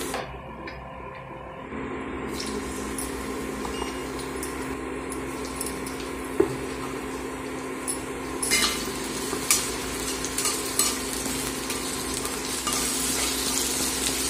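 Chopped onions sizzling in hot oil in a wok, stirred with a metal spatula that scrapes and clicks against the pan. The sizzle grows louder in the second half, over a steady hum.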